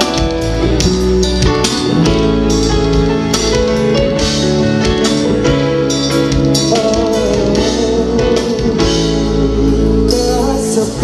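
Live band playing through a large stage PA: electric guitars over bass and drum kit, loud and continuous.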